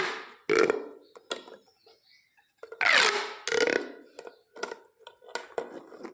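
Corrugated plastic pop tubes stretched and squashed, each stroke giving a short whooshing tone that falls in pitch. The strokes come in two pairs, one at the start and one about three seconds in, with a few small clicks between.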